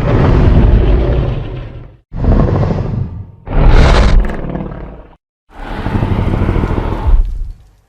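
Godzilla roar sound effect boosted to 500% volume, very loud: four roars of a second or two each, separated by brief silences.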